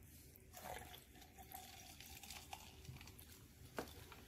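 Near silence: room tone, with a single faint click near the end.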